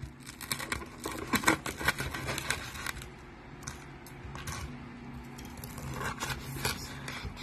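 Knife sawing through the crispy, crackling skin of a deep-fried pork knuckle (crispy pata) and scraping on the wooden board, a rapid run of crunchy cutting strokes for about three seconds, then fewer, lighter scrapes.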